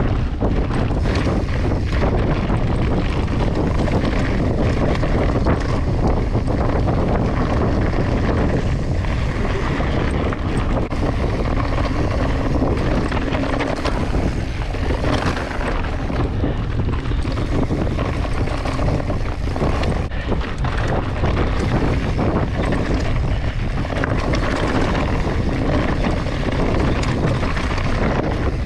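Wind buffeting the microphone over the knobby tyres of a full-suspension Giant Reign mountain bike rolling fast on loose, rocky dirt, with frequent knocks and rattles from the bike over the bumps.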